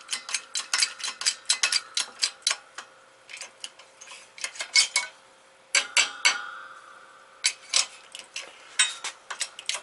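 Metallic clicking and ticking from a bottle-jack shop press being worked slowly to press a wheel bearing race into a rotor hub. The clicks come about four a second at first, thin out in the middle, and there is a sharper knock about six seconds in.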